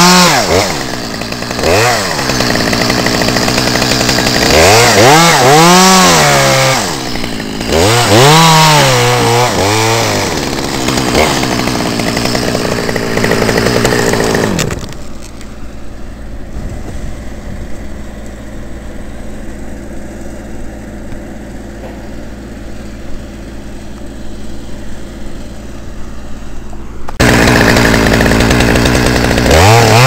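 Chainsaw revving up and down several times, then running lower and steadier for about twelve seconds, then suddenly loud again with another rev near the end.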